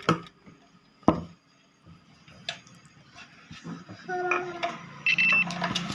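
Multimeter probes clicking against the iron's plug pins and cord, then a short steady electronic beep from the multimeter's continuity tester near the end, the sign of a closed circuit between the probes.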